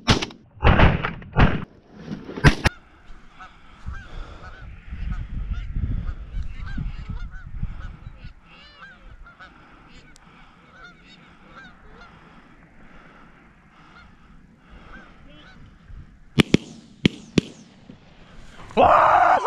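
Shotguns firing, three shots in the first three seconds, then Canada geese honking through a quieter stretch. About sixteen to seventeen seconds in come three more sharp shots.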